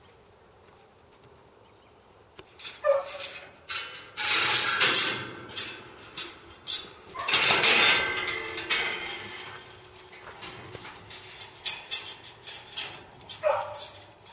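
Steel sheep-yard panels and gates rattling and clanking in repeated bursts as sheep are handled in the race, loudest in two stretches mid-way. A dog barks briefly twice, once near the start of the clatter and once near the end.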